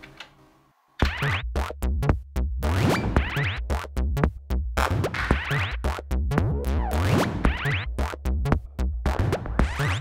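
Elektron Analog Four analog synthesizer playing a sequenced electronic pattern: the previous sound fades away, then about a second in a new pattern starts with a deep pulsing bass under choppy, stuttering stabs with quick pitch sweeps.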